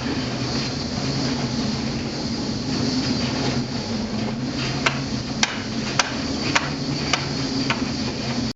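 A steady low mechanical hum with sharp, irregular cracks or knocks over it, most of them in the second half. It cuts off suddenly at the end.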